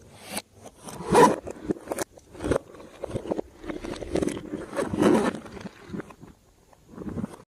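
Hands squishing and stretching slime: a run of irregular squishes of varying loudness, which stop abruptly near the end.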